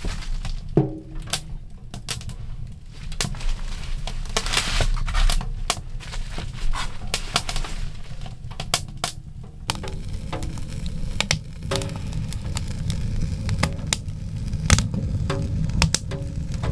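Freshly lit kindling fire crackling in a small stainless steel wood stove, with frequent irregular sharp pops and snaps over a steady low rumble.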